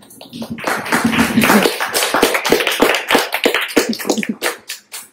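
A small audience applauding: many hands clapping at once, thinning out to a few scattered claps near the end.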